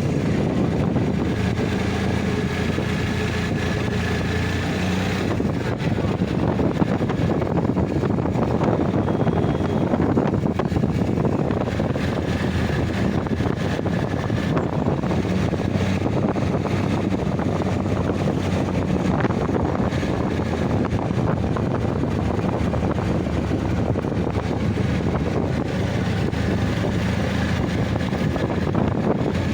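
A motor running steadily at a constant speed, with wind rushing over the microphone, as heard while riding on a moving vehicle.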